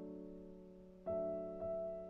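Soft background piano music, chords struck and left to fade, with a new chord about a second in and another half a second later.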